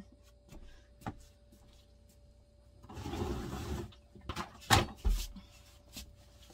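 White plastic portable toilet being handled and lifted out of a small tiled shower stall: a click, a rustling scrape about three seconds in, then a few sharp knocks and a low thump around five seconds in as it is moved and set down.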